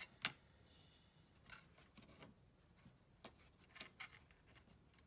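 Faint handling of small metal hardware: a sharp click just after the start, then scattered light ticks and rustles as fingers work a metal ring and bolt into place.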